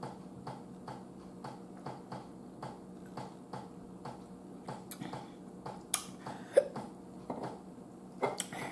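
A steady, fast ticking, about two or three short ticks a second. About six seconds in there is a sharp click and then a louder knock, and near the end a few more clicks, fitting a glass soda bottle being put down on a tabletop.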